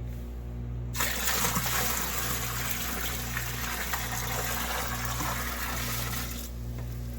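Water rushing and splashing in a sump pit. It starts abruptly about a second in and stops suddenly near the end. Under it runs a steady low hum that pulses a little more than once a second.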